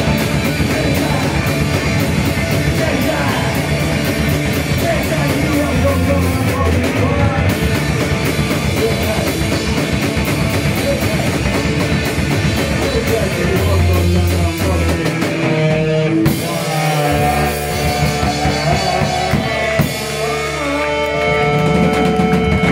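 Live punk band playing a hardcore song: distorted electric guitar, bass guitar and drum kit with vocals. About fifteen seconds in, the dense full-band playing breaks up into held and sliding notes as the song winds down.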